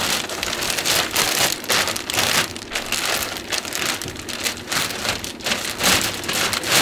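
Water splashing and pattering irregularly onto a surface as it is put into a makeshift pool, with many quick crackling patters.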